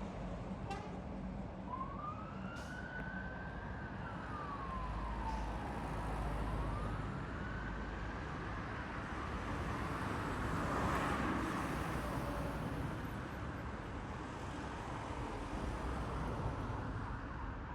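Fire engine siren heard at a distance in a slow wail, rising and falling twice over several seconds, over a steady rumble of road traffic.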